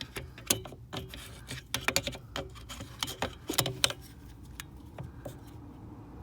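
Irregular plastic clicks, knocks and rubbing as a replacement switch is handled and fitted behind the brake pedal, busiest in the first few seconds and then quieter.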